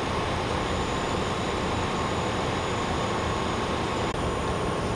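Steady rumble and hiss of vehicle noise at an even level, with a faint steady whine above it.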